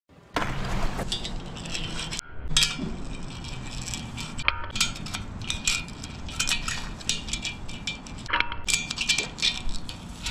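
Fingerboard clicking and clacking on a metal rail: the small board's wheels and trucks knock and grind against the metal in quick, irregular strikes over a steady low rumble. The sound drops out briefly a few times.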